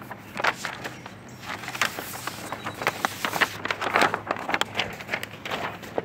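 Paper backing being peeled off a vinyl hood stripe decal. The stiff paper crinkles and crackles in a rapid, uneven run of sharp crackles as it is pulled away and handled.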